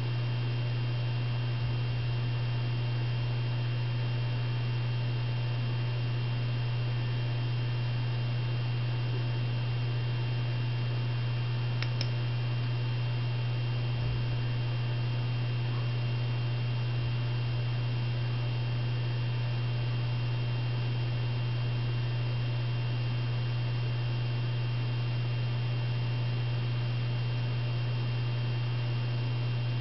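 A steady low electrical hum with faint higher steady tones above it, unchanging throughout. A single short click about twelve seconds in.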